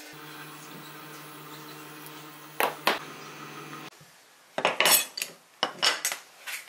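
A steel ruler and pieces of wood are set down and shifted on a wooden workbench, giving a couple of clattering knocks about two and a half seconds in and a string of sharper clacks and knocks in the second half. A steady low hum runs underneath until it stops partway through.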